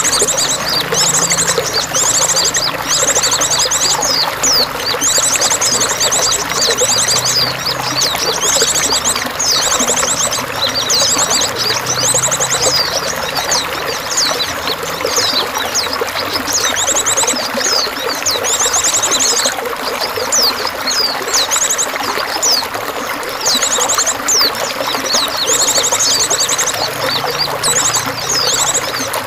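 Songbirds singing in rapid high trills and short whistled, gliding notes, with pauses between phrases, over a steady rush of pouring water.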